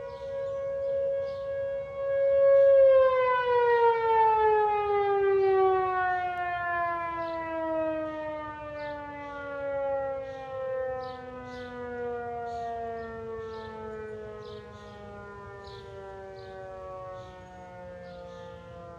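Outdoor tornado warning siren sounding a steady two-note wail, then, about three seconds in, winding down: its pitch slides slowly lower and its volume fades as it shuts off.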